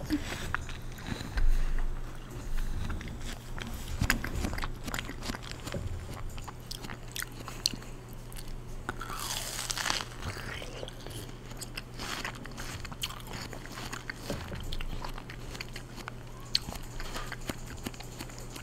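Close-miked biting and chewing of a fresh watermelon slice: wet, crisp crunches and many small irregular mouth clicks, over a faint steady low hum.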